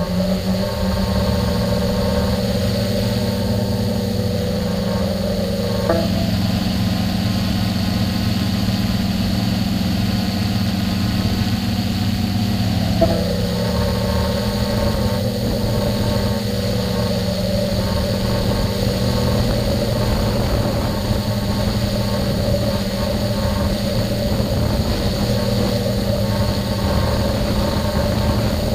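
Electric motors and propellers of a multirotor drone humming steadily, heard close from its own onboard camera. The pitch drops about six seconds in and rises again about thirteen seconds in as the drone eases its descent toward a landing spot and then holds.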